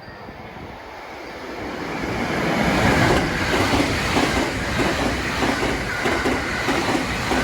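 Train running over jointed track: its rumble builds over the first few seconds, then a rapid, rhythmic clatter of wheels striking the rail joints.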